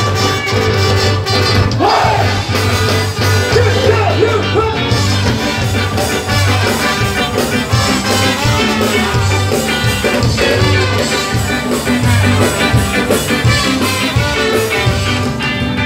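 Ska band playing live: horn section, electric guitar, bass and drums on a steady, driving beat, with singing over the music.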